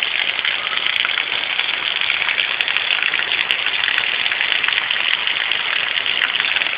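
Heavy rain pouring down in a steady hiss, with a few faint taps.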